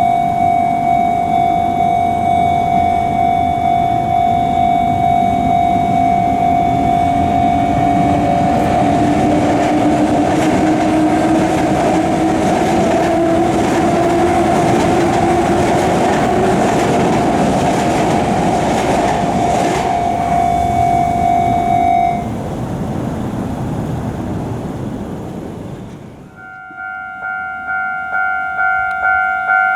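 Japanese level-crossing warning bell ringing in quick, even strikes while a train passes over the crossing with rail noise and a slowly rising hum. The bell stops as the train clears, and after a cut another crossing's bell, higher in pitch, starts ringing at about three strikes every two seconds.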